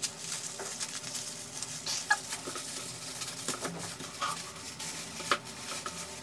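Packing material rustling and crinkling as items are rummaged out of a cardboard box, with scattered crackles and small taps, a few sharper ones standing out.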